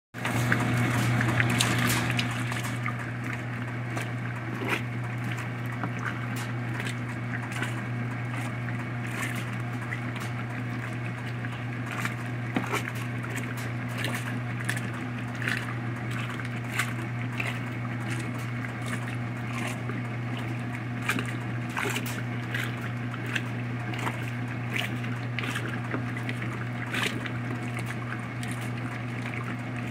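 Top-loading washing machine agitating a load of clothes in water: a steady low motor hum under sloshing and splashing water. The water rushes louder for the first couple of seconds.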